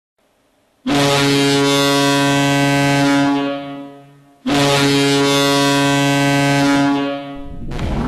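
Ice hockey goal horn sounding two long blasts of about two and a half seconds each, each fading out. Electronic music with a rising sweep starts near the end.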